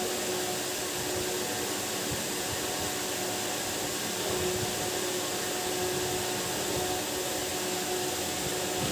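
Steady machine whir with a hum held on one pitch throughout, unchanging.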